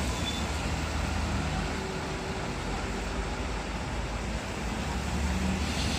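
Buses and traffic running on a wet road: a steady low engine rumble under an even hiss.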